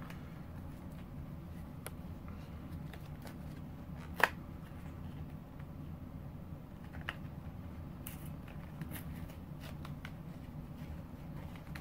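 Uno playing cards being handled and laid out: faint card and packaging rustles and light clicks, with one sharper click about four seconds in, over a low steady hum.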